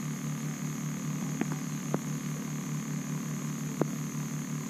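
Steady low hum that pulses several times a second, with a faint hiss and three short light clicks.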